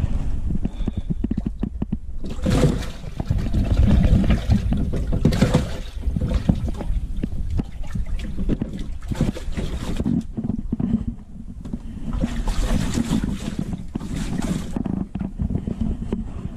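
Water sloshing and splashing in a bass boat's livewell as a hand reaches in and grabs a largemouth bass, coming in several bursts over a steady low rumble.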